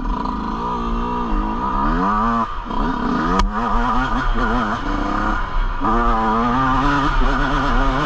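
Yamaha YZ125's two-stroke single-cylinder engine revving as the dirt bike is ridden, its pitch climbing, dropping sharply and climbing again several times. A sharp click about three and a half seconds in.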